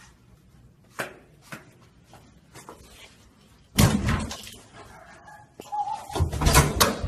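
A door slamming shut about four seconds in, then a run of loud thumps against a door near the end, after two lighter clicks in the first two seconds.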